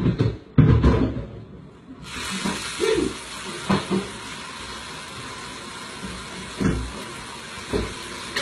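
Bumps and knocks on wooden kitchen cabinets and the worktop as someone climbs and handles the open upper cabinets, loudest in the first second, then single knocks every second or two. A steady hiss starts about two seconds in and carries on under them.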